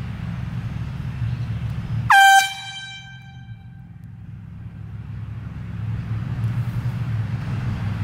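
One short, loud blast of a handheld air horn about two seconds in, fired while a golfer swings at his tee shot. It rings on for about a second after the blast.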